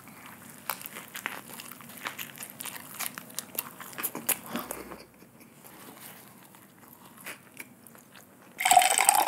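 Close-miked eating of a Whopper burger: a bite, then a dense run of sharp chewing clicks for a few seconds that fades to quieter chewing. Near the end a loud hissing rush of noise sets in.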